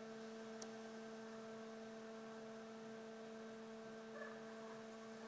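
Faint steady electrical hum, one low tone with a couple of higher overtones, with two faint ticks, one about half a second in and one near the end.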